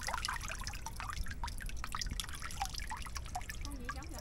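Water running and dripping out of a large lattice shrimp trap as it is lifted from the water: a steady trickle broken by many quick drips and small splashes.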